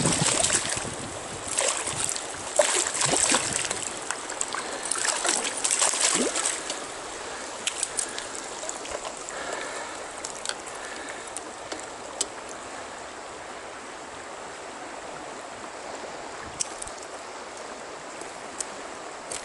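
Stream water flowing steadily, louder over roughly the first six seconds, with scattered sharp clicks and knocks throughout.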